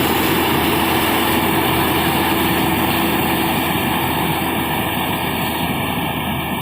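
Zoomlion FH 88 rice combine harvester running steadily, with engine and machinery noise, growing a little fainter near the end.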